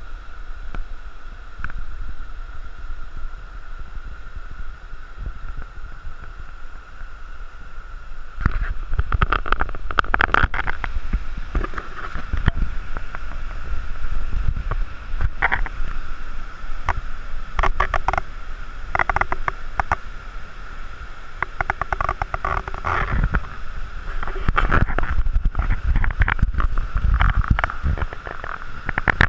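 Whitewater rapids of a river in spate rushing steadily, with irregular rumbling gusts from about eight seconds in.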